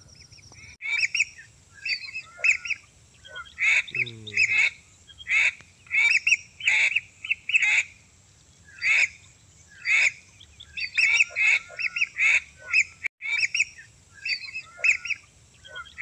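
Whistling-duck calls: short, sharp whistles in quick runs of two or three, over and over. The same sequence comes round again after about twelve seconds, as a looped recording does.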